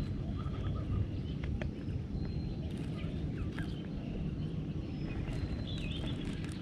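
Outdoor ambience: a steady low rumble with faint birds chirping over it, including a short trill of quick repeated notes near the start and a wavering call near the end.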